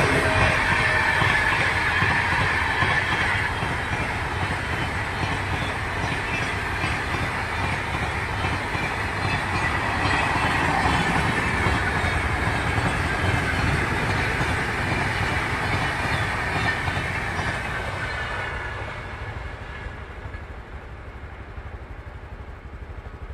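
Passenger coaches of an express train passing close at speed: a steady rush of steel wheels on rail with a ringing tone over it, fading away over the last few seconds as the train goes off into the distance.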